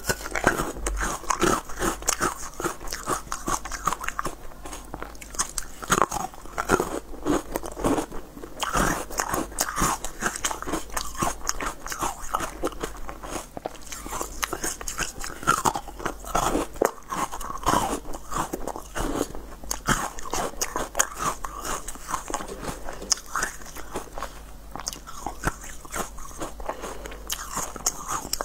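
Close-miked biting and crunching of frozen pink moulded treats: a constant run of crisp cracks and crackles, with chewing between bites.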